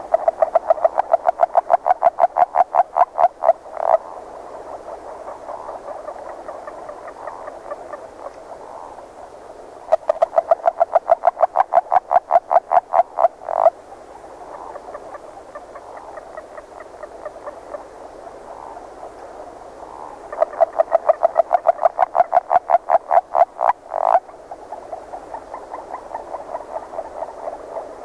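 Agile frogs calling: three loud series of rapid notes, about five a second, each lasting three to four seconds and about ten seconds apart, with fainter calling of more frogs between them.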